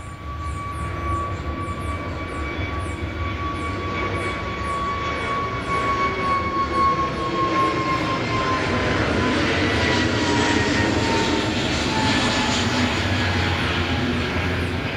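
Jet noise from an Airbus A320neo's CFM LEAP-1A turbofans at takeoff power as the jet climbs out overhead. The steady rush grows louder, peaking about two-thirds of the way through, while a fan whine slowly drops in pitch as the aircraft passes.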